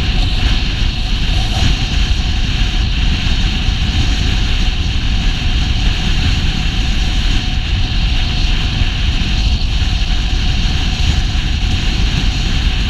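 Steady wind noise rushing over an action camera's microphone while riding along a road, with a low rumble of road and vehicle noise underneath.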